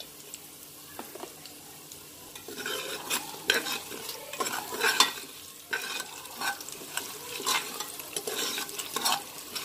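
Ghee sizzling in a pressure cooker with fried whole spices and green chillies. From about two and a half seconds in, a metal ladle scrapes and stirs the tempering in repeated strokes.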